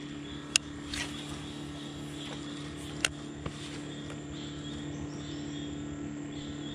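Steady low hum of a small boat's motor, with a few sharp clicks and faint high bird chirps over it.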